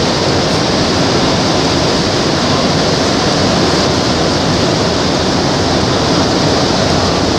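Rubber-tyred Montreal metro train running through a tunnel, heard from inside the car: a loud, steady rushing roar.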